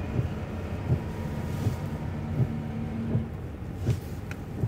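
A car driving: low engine and road rumble, with a few light knocks from bumps.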